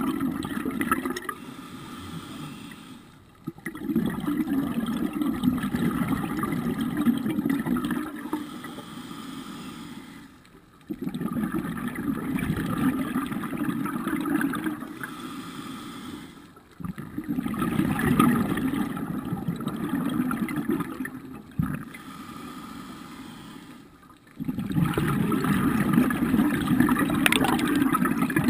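Scuba diver breathing through a regulator underwater. Bubbling exhalations of about four seconds come roughly every six to seven seconds, five in all, with quieter inhalations between them.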